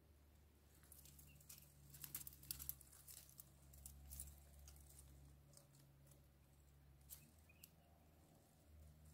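Near silence: a faint steady low hum with a scatter of faint soft clicks and ticks, bunched about one to five seconds in and a couple more near the end.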